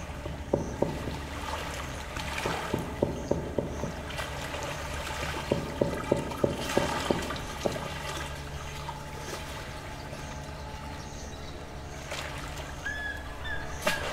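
Small lake waves lapping against the shore, with irregular clusters of quick slaps and splashes over a steady wash of water. A short bird chirp comes near the end, over a low steady hum.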